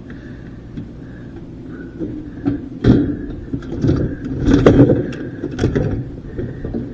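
Clanks and knocks of parts being handled while a dishwasher is pulled apart for scrap, over a low steady rumble. The knocks begin about two seconds in, with a sharp one near three seconds and a busy run of them after.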